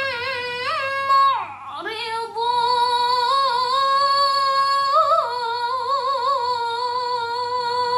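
A woman's voice reciting the Quran in melodic tilawah style, holding long, drawn-out notes with quavering ornaments. About a second and a half in, the pitch and level slide down briefly before another long sustained phrase.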